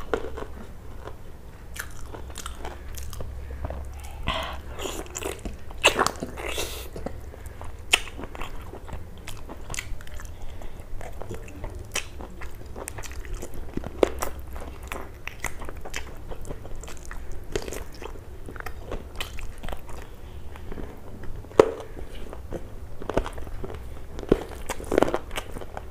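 Close-miked chewing and biting while eating chicken curry on the bone and rice by hand: wet mouth smacks and short sharp clicks at irregular intervals, over a faint low hum.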